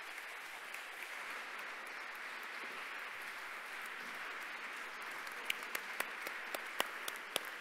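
Audience applauding steadily. From about five and a half seconds in, several loud single claps close by stand out over it.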